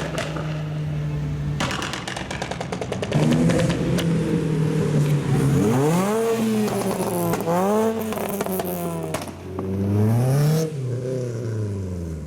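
Tuned car engine held at steady revs, then a rapid run of exhaust pops and crackles about two seconds in, followed by several revs that climb and fall back in pitch.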